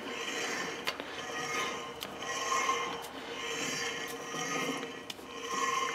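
Engine lathe chuck, with a crankshaft pulley mounted, being turned slowly by hand: a soft rubbing and scraping of the spindle and gearing that swells and fades about once a second, over a faint steady hum, with a couple of light clicks.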